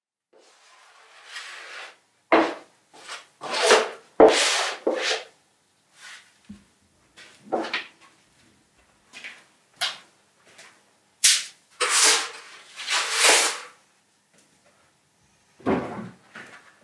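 A series of irregular rubbing and scraping strokes, about a dozen, some short and sharp, others lasting about a second.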